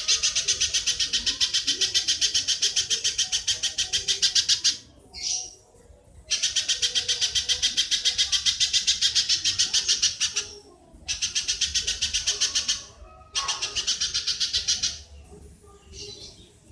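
An animal call recording: long runs of rapid, sharp chattering notes, about seven a second. Each run lasts a few seconds, and short breaks between them hold a few fainter single calls.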